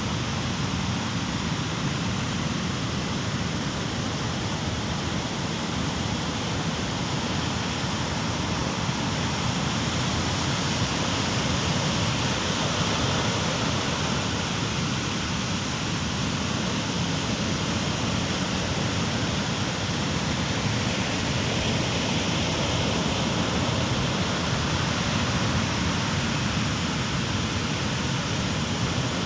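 Steady, unbroken noise of rough surf breaking on the beach, mixed with typhoon wind buffeting the microphone.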